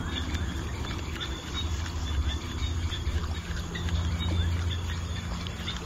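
Lakeside evening ambience: insects and a bird calling with short, quickly repeated sweeping chirps, and a high insect tone pulsing above them, over a steady low hum.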